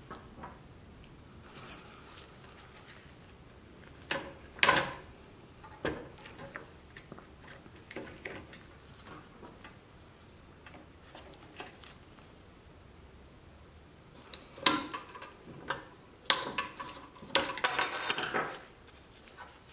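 Small metal parts of a 1960 Tonka pressed-steel toy truck clicking and clinking as a wheel and its hubcap are worked off the axle by hand. There is one louder clatter a few seconds in, and a quick run of clinks with a short metallic ring near the end.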